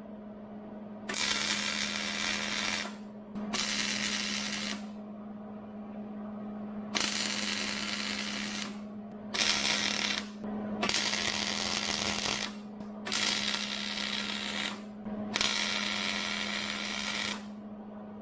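Wire-feed welder striking and holding its arc in seven bursts of one to two seconds each, with short pauses between, over a steady hum. An Allen key is being welded into a stuck camshaft sprocket bolt so that the bolt can be turned out.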